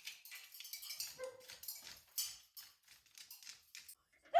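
Grit, dust and small bits of old mortar falling and pattering onto stone as the joints are scraped out, a quick irregular run of light ticks and clicks. A brief rising whine right at the end.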